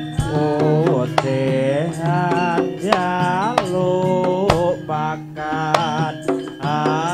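Javanese jaranan music: an ornamented lead melody that slides and bends between notes over sharp kendang hand-drum strokes and a steady low drone.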